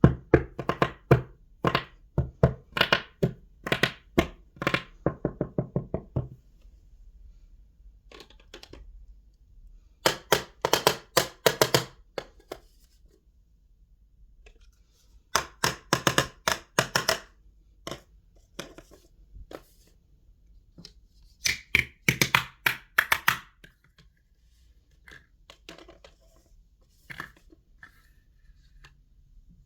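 Quick repeated chopping taps on a small cutting board, in bursts of a few seconds with short pauses between, the kind of sound made by cutting pieces in a miniature toy kitchen.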